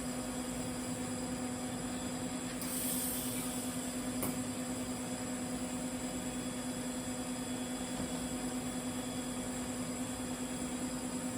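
TIG welder running on carbon-steel pipe: a steady electrical hum with a faint high whine above it. A short hiss comes about three seconds in, and a sharp click a second later.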